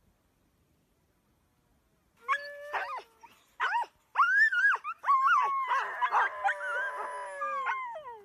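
A pack of Greenland dogs howling, starting about two seconds in with a few short rising and falling calls, then several voices overlapping in a continuous chorus.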